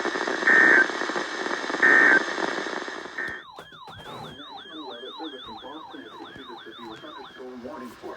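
Three short Emergency Alert System data bursts, buzzy tones about a second and a half apart over hissy radio reception, marking the end of the broadcast warning. Just after the third burst the hiss cuts off and an electronic siren-like alert tone starts, a falling whoop repeated about three times a second for about four seconds.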